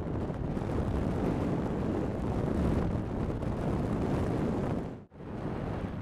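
Wind rushing over the microphone, mixed with tyre and road noise from an Ola S1 Pro electric scooter on the move. The noise is steady and cuts out for a moment about five seconds in, then picks up again.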